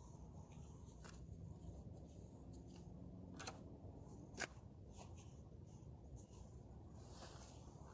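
Faint rustling of riding gloves and jacket as gloves are pulled on, with a few soft clicks, the clearest a little past halfway, over a low steady rumble of wind or distant background.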